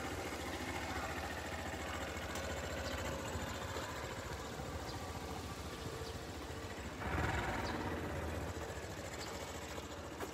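City street traffic: vehicle engines running and idling, with a louder swell as a nearby vehicle passes or pulls away about seven seconds in.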